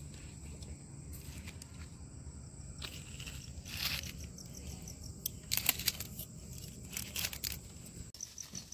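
Crickets trilling steadily in a high thin tone over a low hum, with a few short rustles and clicks through the middle as leaf-wrapped chicken parcels are set on hot charcoal in a clay pit oven.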